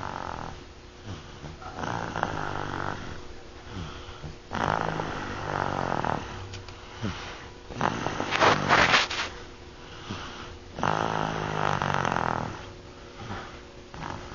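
A young child snoring, a rattling snore on each breath. There are about five snores roughly three seconds apart, and the loudest comes a little past the middle.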